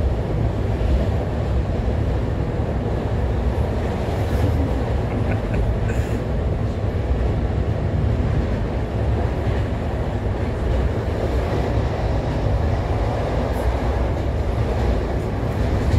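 Steady running rumble of a passenger train moving at speed on the rails, heard from inside the carriage.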